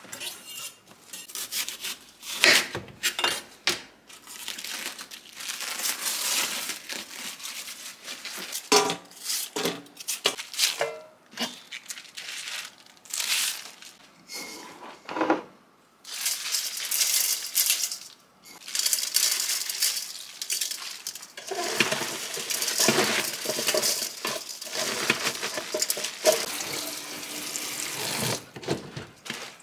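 Crunching and rustling knocks of napa cabbage being handled at a stainless kitchen sink. From a little past halfway, tap water runs steadily onto cut cabbage in a stainless steel bowl, wetting it for salting, and stops near the end.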